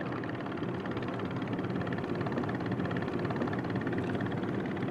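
Steady engine drone, even throughout.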